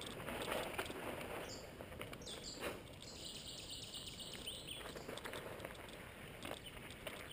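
Mountain bike rolling over a rough dirt and gravel track, tyres crunching with scattered knocks and rattles. A bird calls over it in a quick series of high chirps from about a second and a half in until nearly five seconds.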